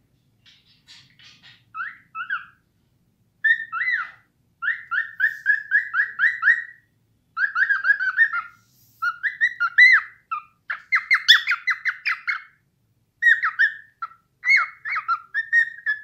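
Cockatiel whistling: phrases of quick, repeated rising whistled notes, several a second, broken by short pauses. It is soft at first and louder from about three seconds in.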